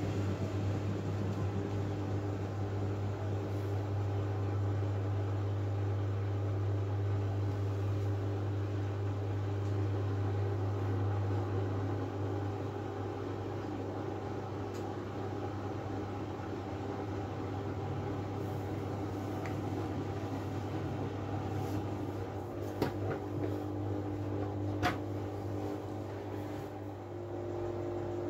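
Miele W433S front-loading washing machine running with a steady, low mechanical hum, easing off slightly in the second half, with two short clicks near the end.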